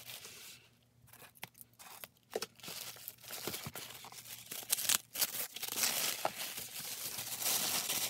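Tissue wrapping paper being torn and crumpled by hand as a present is unwrapped, a dense rustle full of sharp crackles.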